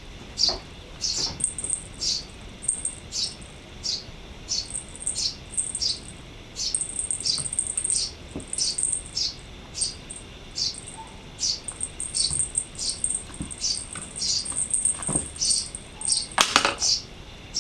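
Small songbird calling repeatedly: short, high chirps slurring downward, about two a second, with a thin high trill running between them for long stretches. One louder, fuller burst comes near the end.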